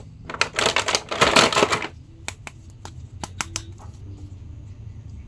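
Clear plastic blister packaging of toy action figures crinkling as it is handled, loudest in the first two seconds, followed by a string of light clicks and taps of hard plastic figures being handled.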